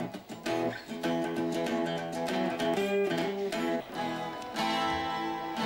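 Twelve-string acoustic guitar being strummed, chords ringing on between strokes.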